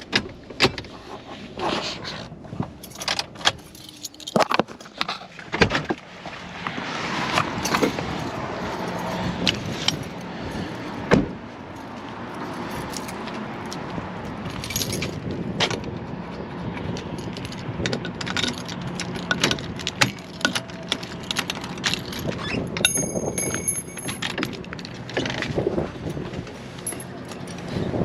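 Keys jangling with a run of clicks and knocks, then a steady rushing noise with scattered clicks. A brief high electronic beeping comes about 23 seconds in.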